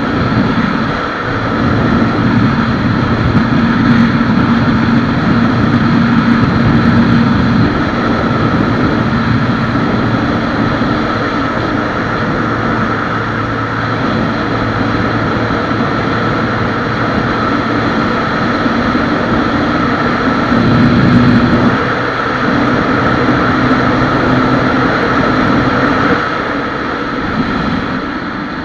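Honda Wave 125X motorcycle's single-cylinder four-stroke engine running hard at speed through its stock exhaust. The engine note changes briefly twice, about ten and twenty seconds in, then settles back.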